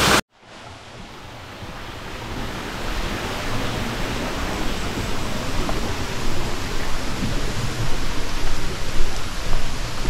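Steady rushing noise of a jungle stream and waterfall, with an uneven low rumble underneath. It cuts out briefly at the very start, then fades back in over the first couple of seconds.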